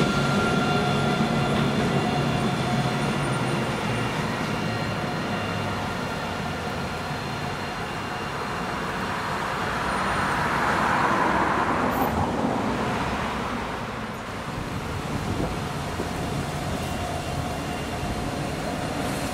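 Alstom Citadis 402 tram pulling away, its traction motors giving a steady multi-tone whine over the rolling rumble that fades within the first few seconds. About halfway through, a passing vehicle's rumble swells and fades, over steady town traffic noise.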